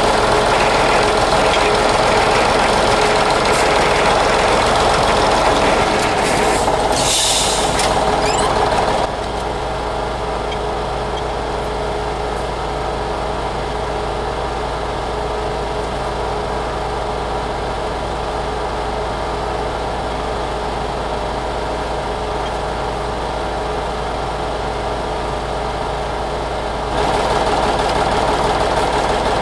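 T-150K tractor's YaMZ-236 diesel running steadily at raised speed. A short hiss comes about seven seconds in, and at about nine seconds the engine drops to a lower, steady idle. Near the end the sound grows louder again.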